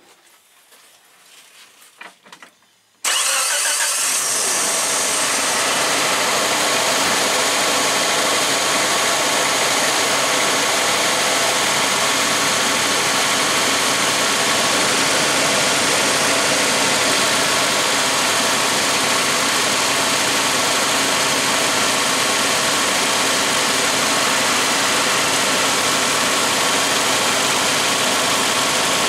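Geo Tracker's four-cylinder engine starts about three seconds in and settles into a steady idle.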